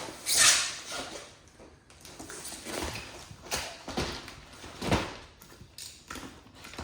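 A package being torn and pulled open by hand: a loud ripping rustle about half a second in, then several shorter scrapes and rustles of packaging.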